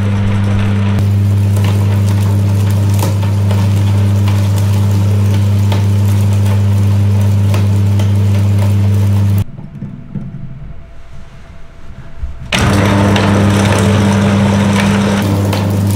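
Electric meat grinder running with a steady motor hum while it grinds rubber bouncy balls, with crackling as the balls break up. Partway through, the hum drops out for about three seconds, then comes back at full level.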